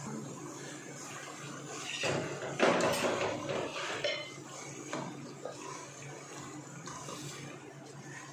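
A black spatula stirring chicken pieces and ginger-garlic paste in hot oil in a non-stick pot, scraping and knocking against the pan. The stirring is loudest about two to four seconds in, with a few sharp knocks.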